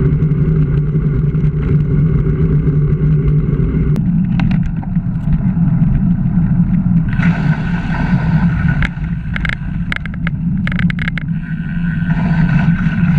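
Steady wind rumble and tyre noise from a bicycle ride, picked up by a bike-mounted action camera. The sound changes abruptly about four seconds in. From about seven seconds in, a run of sharp clicks and rattles comes through as the bike rides the rough lane.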